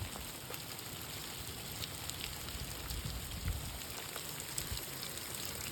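Steady rain falling, an even hiss with scattered drops ticking close by, and a few dull low thumps.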